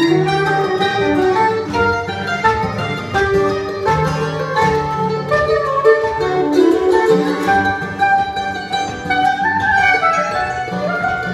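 Live acoustic trio playing an instrumental tune: mandolin and acoustic guitar picking, with a saxophone playing the melody over them.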